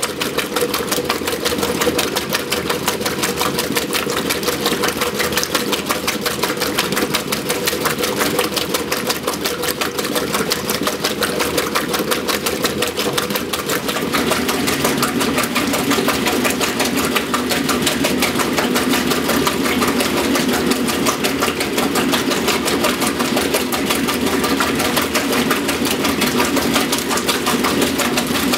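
A 1963 Frigidaire Custom Imperial washer agitating: the motor and Multi-Matic belt-drive transmission run with a rapid, even churn as the Deep Action agitator sloshes the wash water. About halfway through, the hum of the machine drops lower.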